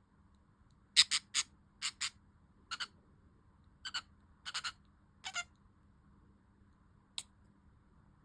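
Budgerigar giving a run of short, sharp chirps, mostly in quick pairs, over about four seconds, then a single chirp near the end.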